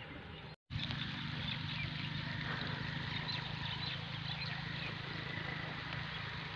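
Countryside outdoor ambience: a steady low rumble with small bird chirps scattered through it. The sound drops out for a split second about half a second in, then resumes.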